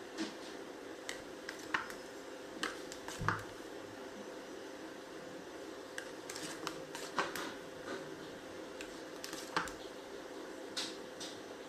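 Metal cake spatula spreading whipped cream on a sponge cake, with irregular light clicks and taps as the blade knocks against the cake and the foil cake board, over a steady background hum.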